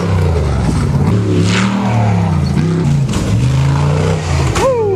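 Off-road race buggy engines revving hard, their pitch rising and falling as the buggies accelerate past and launch off a jump.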